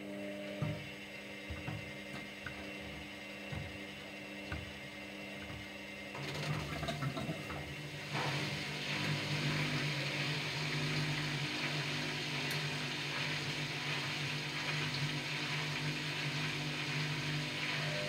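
Washer-dryer drum motor starting up and turning the load, with soft thuds about once a second from the tumbling laundry. About eight seconds in, a louder steady rushing sound joins the motor hum and carries on.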